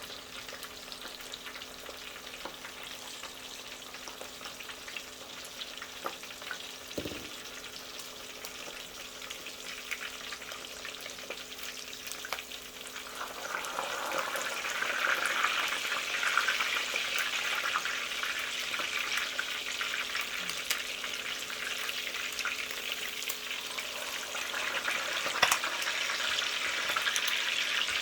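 Pork chops deep-frying in a lot of oil: a steady sizzle and crackle that grows louder about halfway through. A brief knock sounds about seven seconds in.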